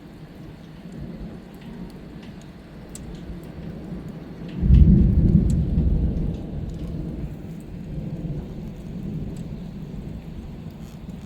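Thunder rumbling over steady rain, with a loud, low clap about five seconds in that dies away over a couple of seconds.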